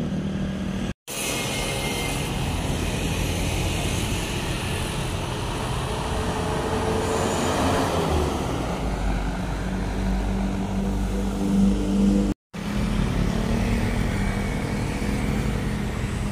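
Road traffic passing: motorcycles and cars, with a medium-size bus driving past close by about halfway through, its engine rumbling low as it goes. The sound breaks off into brief silent gaps twice, about a second in and near the end.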